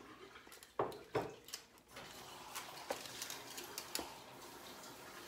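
Metal spoon clinking and scraping against a pot and food containers while dishing out chili, with two sharper clinks about a second in and a few lighter taps later.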